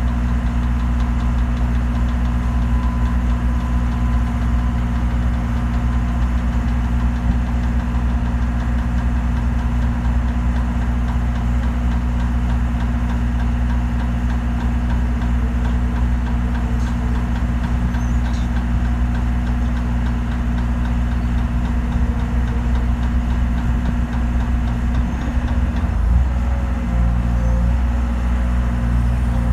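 Diesel engine of a JLG 150-ft Ultra Boom lift running steadily, powering the hydraulics as the boom is worked; the engine note wavers briefly near the end.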